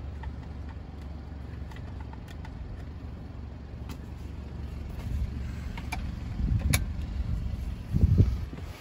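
Plastic clicks and knocks from the BMW X3's rear-armrest fold-out cup holder being handled and pushed back into the armrest, with a few sharp clicks from about four seconds in and a louder thump near the end, over a steady low rumble.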